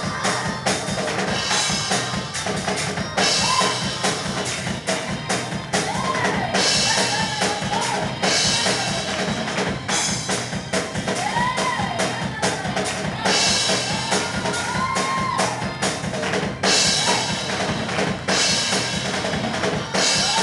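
Live up-tempo worship music played on a full drum kit with bass drum, snare and crashing cymbals, and a melody line running over it. Hand clapping along with the beat.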